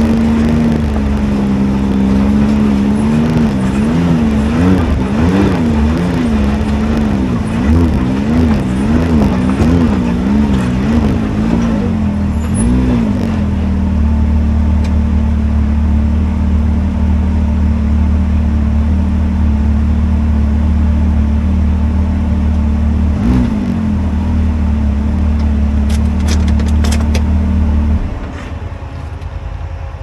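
Can-Am X3 side-by-side's turbocharged three-cylinder engine running as it drives the trail. For the first dozen seconds its pitch rises and falls about once a second, then it holds steady for about fifteen seconds. Near the end the engine sound drops away sharply.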